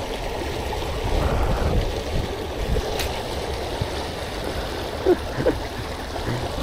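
Sea water lapping and churning against the rocks of a breakwater in a steady rush, with a low rumble of wind on the microphone. A single sharp click about halfway through.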